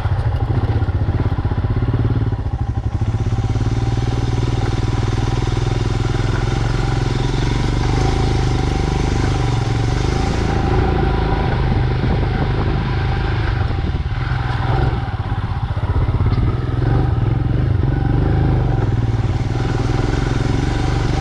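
Royal Enfield Himalayan BS6's 411 cc single-cylinder engine running steadily under way as the motorcycle is ridden.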